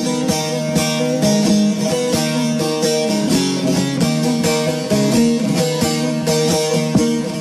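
Instrumental interlude of a Turkish folk song (türkü): plucked string instruments playing a fast run of picked notes over a sustained accompaniment, with no singing.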